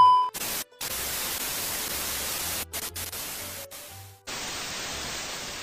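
Static-like hiss sound effect over a low repeating beat, broken off by a few short cuts about halfway through.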